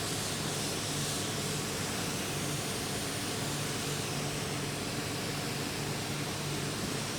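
Water mister spraying a steady fine mist onto a tray of cocoa-peat growing medium, a continuous hiss that soaks the substrate before seeding.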